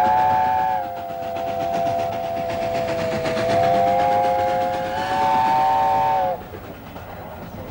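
Steam locomotive Sir Nigel Gresley, an LNER A4 Pacific, sounding its chime whistle in one long chord of about six seconds. The chord sags slightly in pitch midway, rises again and cuts off suddenly, leaving the steady sound of the train running.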